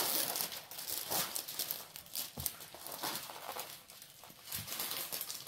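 Crinkling and rustling of a rolled diamond painting canvas and its thin plastic protective film as it is handled and unrolled, an uneven run of crackles and soft handling noises.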